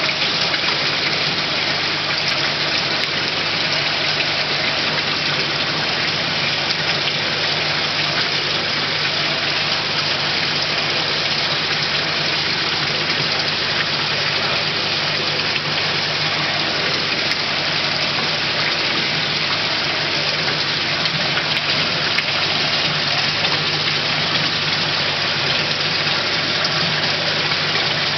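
Steady rushing and bubbling of aerated water in a crowded koi holding tub, with a pump humming low and steady underneath.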